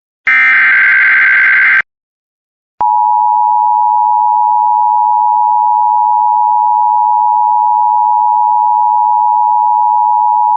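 An Emergency Alert System SAME header data burst: a harsh digital screech of about a second and a half. After a second of silence comes the EAS attention signal, a steady two-tone alert held for about eight seconds that cuts off abruptly. Together they announce an incoming emergency alert, here a severe thunderstorm warning.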